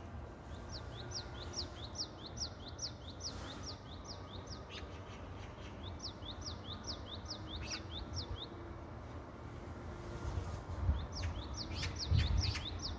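A small bird singing in runs of quick, high chirps, about four a second: one starting about a second in, another in the middle and a third near the end. Underneath is a steady low background noise, with a few louder low thumps near the end.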